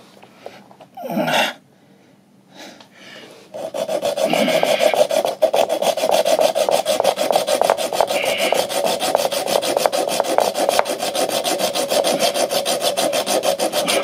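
Hand hacksaw cutting through a green-coated metal tube. After a brief scrape about a second in and a short pause, steady back-and-forth rasping sawing starts a few seconds in and keeps going.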